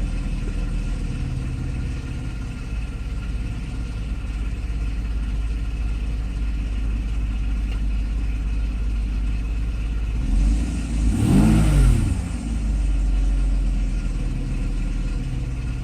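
Mercedes SL600's 6.0-litre V12 idling steadily, with one throttle blip about ten seconds in: the revs rise and fall back to idle. The engine holds a correct idle and picks up cleanly, showing that the repaired E-gas throttle module works.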